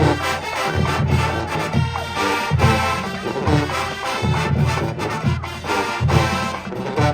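Marching band brass playing, with heavy low notes pulsing in a steady beat a little faster than once a second.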